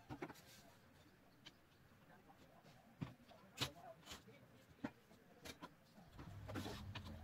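Faint clicks and taps of thin wooden slingshot parts being handled and set down on a cutting mat, with a low hum coming in near the end.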